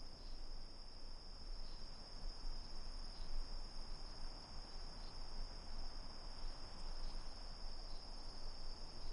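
Crickets trilling steadily at a high pitch, over faint background hiss.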